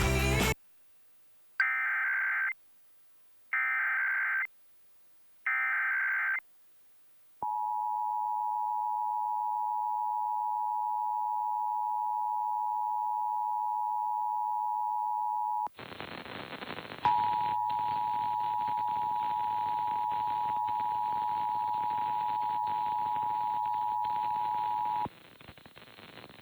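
Emergency Alert System test on a TV broadcast: three one-second bursts of warbling SAME header data tones, then the steady two-tone EAS attention signal for about eight seconds. A hiss then comes in, and the attention signal sounds again for about eight more seconds with the hiss behind it.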